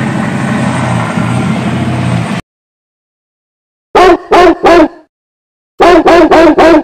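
Steady motor-vehicle engine hum that cuts off suddenly about two and a half seconds in. After a silence come two groups of short, loud pitched notes, three and then four.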